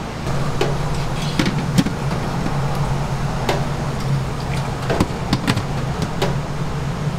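Steady low hum of kitchen equipment, with scattered sharp clicks and light knocks of clear plastic tray lids and containers being handled.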